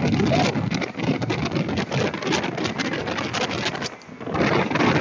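Speedboat running at speed over open sea, its motor and rushing water buried under heavy wind buffeting on the phone's microphone. The level dips briefly about four seconds in.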